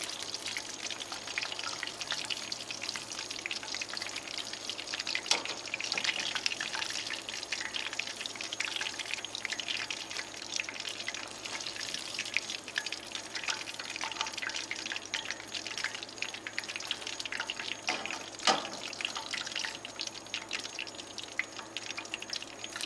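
Hot oil sizzling and crackling steadily in a pan as panko-breaded mangrove snapper pieces fry. Two sharper clicks come through, about five seconds in and again about eighteen seconds in.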